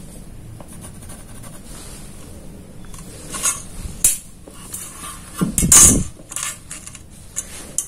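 Steel ruler clinking and scraping on a steel plate being marked out: a handful of separate metal clinks, the loudest a little after the middle.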